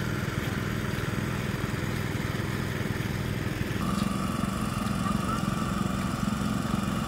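Small engine-driven water pump running steadily, draining water from a flooded field; about four seconds in a higher steady whine joins the engine.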